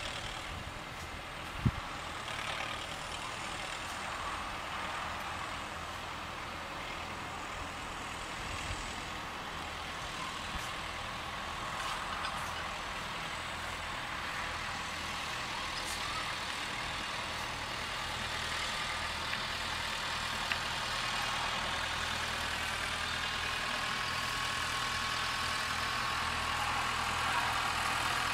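New Holland T4 tractor's diesel engine running steadily at a distance, growing gradually louder near the end as the tractor comes closer. A single sharp click sounds about two seconds in.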